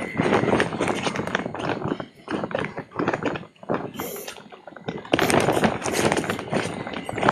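Quick footsteps on a concrete path with grass swishing and brushing alongside. The steps thin out and go quieter in the middle, then come loud and fast again for the last two seconds.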